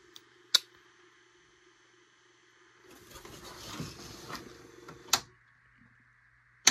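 Apple Disk II floppy drive running with a faint hum, sharp clicks and a stretch of rattling from about three to five seconds in as the head seeks across the disk. The owner thinks the drive sounds unhealthy.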